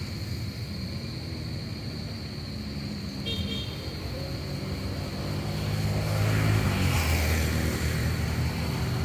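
A motor vehicle's engine running, swelling to its loudest about six to seven seconds in as it passes, with a brief high-pitched toot about three seconds in.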